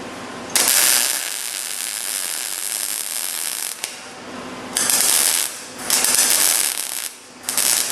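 Arc welder crackling on thin car-body sheet metal in short bursts, stitch-welding a patch panel into the cowl: one long burst of about three seconds, then three shorter ones with brief pauses between.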